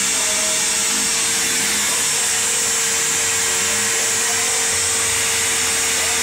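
Bissell upright vacuum cleaner running steadily: a constant hum with a strong high hiss of rushing air.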